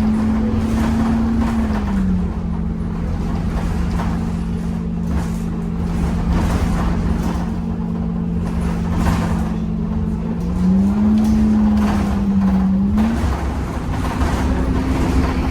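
Temsa Avenue LF 12 city bus with a DAF engine and ZF gearbox, heard under way: a low engine rumble under a loud humming whine, the strange sound of this bus. The whine holds one pitch for long stretches. It slides lower about two seconds in, then rises and dips again twice in the last few seconds.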